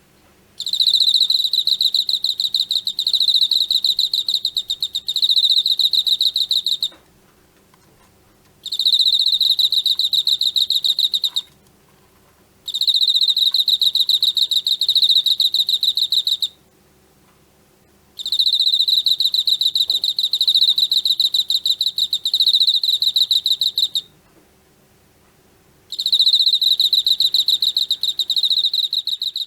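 Emma field cricket (Teleogryllus emma) chirping: loud, high-pitched, rapidly pulsed trills. It sings in five bouts of a few seconds each, separated by pauses of about two seconds.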